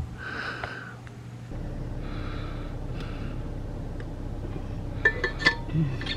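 Steady low hum inside a car, with a paper map crinkling as it is handled about five seconds in.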